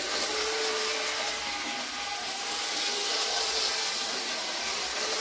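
Z-scale model train running on its track: a steady high whir of the tiny locomotive motor and wheels, with faint shifting tones.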